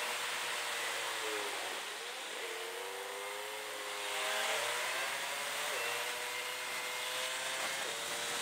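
Motorcycle engine (a 2009 Kawasaki ER-6n parallel twin) heard through a helmet camera with the recording fast-forwarded, so the engine note is raised in pitch. The pitch climbs and then drops suddenly several times, as the rider changes gear, over a steady wind hiss.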